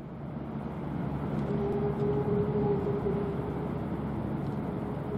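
Small coastal cement carrier under way, its engine making a low steady drone over a wash of water and wind noise that swells up out of silence over the first second; a steady higher hum joins about a second and a half in.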